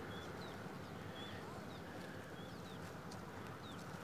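Small birds chirping: short high chirps, some sliding down in pitch, two or three a second, over a steady rush of wind.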